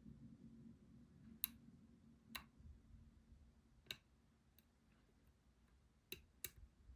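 Faint, sharp, irregular clicks of a lock pick and tension wrench working the pins of a challenge lock, about six in all.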